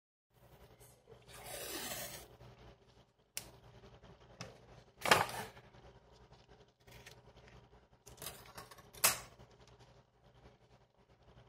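Close handling noises: a rasping swish about a second in, then scattered sharp clicks and snaps, the loudest near the middle and again near the end.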